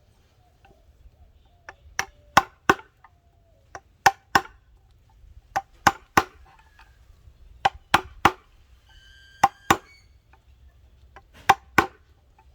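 Hammer tapping a screwdriver used as a chisel to chip out mahogany. Sharp knocks come in quick groups of two or three, about sixteen in all, with a brief ringing tone about nine seconds in.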